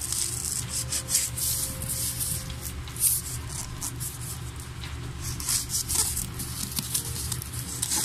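Kitchen knife slitting the packing tape along the seam of a cardboard box: a run of irregular scraping strokes of the blade on tape and cardboard.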